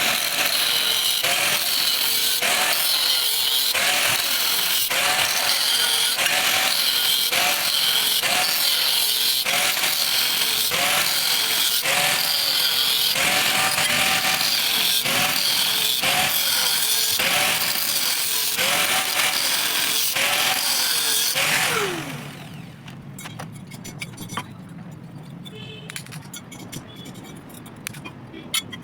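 Electric grinder grinding metal, its pitch wavering up and down with the load. About three-quarters of the way through it is switched off and winds down, leaving quieter clicks and knocks of metal being handled.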